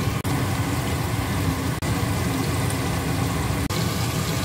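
Battered chicken wings deep-frying in hot oil in a wok: a steady sizzle over a low rumble, broken for an instant three times.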